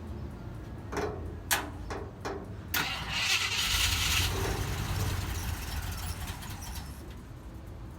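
A vehicle engine starting: a few sharp clicks, then about three seconds in the engine catches and runs with a loud hiss and low rumble that eases off toward the end.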